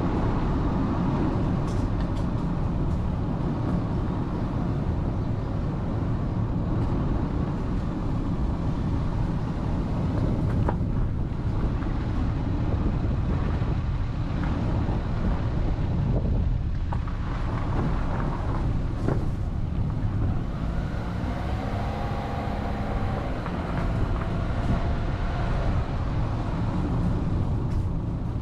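Vehicle driving steadily along a road: a continuous low rumble of engine, tyres and wind noise that holds an even level throughout.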